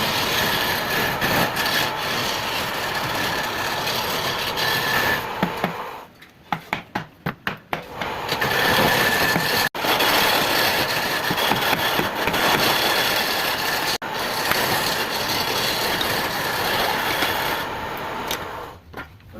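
A power tool working wood: a rough, continuous rasping over a faint steady motor whine. About six seconds in it drops away for a couple of seconds, and a series of short, quick strokes is heard instead.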